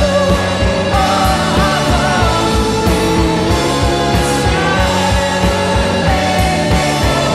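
Indie rock band playing live: electric guitar and electric bass over a steady, fast beat, with a sung vocal.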